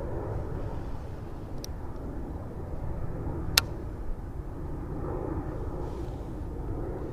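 A steady low rumble, with two sharp clicks about two seconds apart, the second louder.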